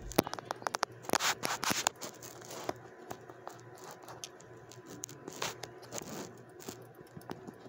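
Pet rat scrabbling on a fabric chair seat right by the microphone: quick scratchy clicks and rustles, dense for the first three seconds, then only a few scattered ones.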